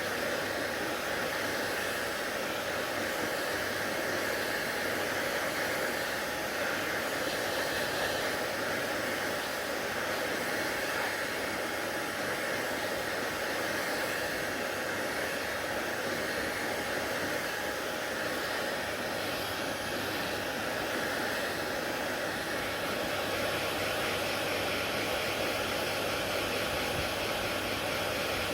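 Hair dryer running steadily, a constant airy whoosh with no change in speed.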